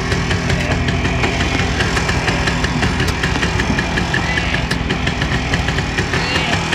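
1962 MZ 250cc single-cylinder two-stroke motorcycle engine running steadily, with a fast, even firing beat.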